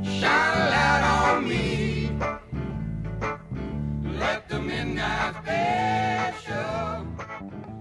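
Background song: a voice singing over a repeating bass line, getting quieter near the end.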